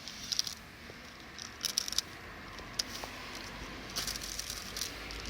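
Plastic bag crinkling in short irregular bursts with small clicks, as a hole is cut in it.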